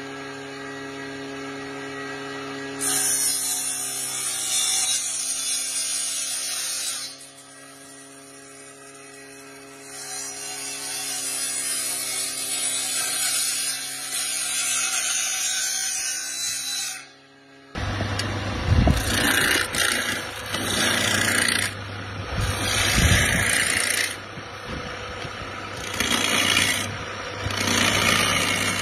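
An electric woodworking cutter running with a steady hum, biting into willow in two long stretches as a cricket bat blade is shaped. After an abrupt cut, a lathe spins a cricket bat while a hand chisel turns the handle in repeated loud bursts every second or two.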